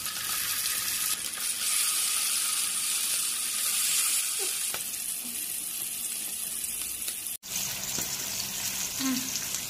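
Masala-coated sardines frying in hot oil in a pan: a steady high sizzle. It cuts out for an instant about seven seconds in.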